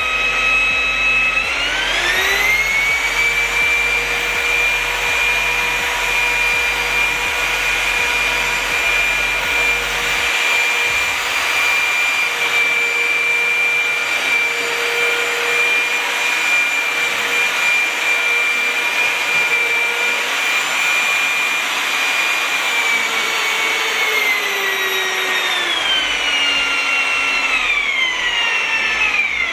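Parkside 1800 W twin-paddle mixer's electric motor whining as it stirs concrete mix in a bucket. It climbs to high speed about two seconds in, holds steady, then drops back in two steps near the end as the speed settings are tried.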